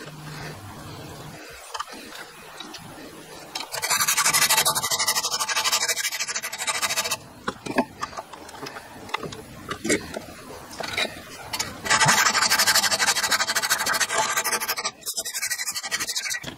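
A metal rod clamped in a bench vise being worked by hand: two long spells of fast back-and-forth metal rasping, starting about four seconds in and again about twelve seconds in, the later one a hacksaw cutting through the rod.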